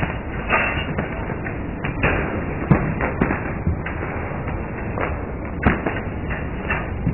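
Steady rushing noise with scattered sharp knocks and taps, the loudest about two and three quarter and five and a half seconds in.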